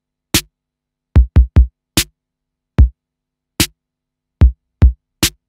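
Background music: a sparse electronic drum-machine beat of about ten separate kick and snare hits in an uneven rhythm, with silence between the hits.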